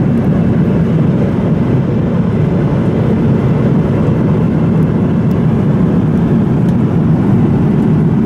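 Steady cabin noise of an Airbus A330-300 airliner in flight: the jet engines and rushing airflow heard from inside the cabin as an even, deep rush.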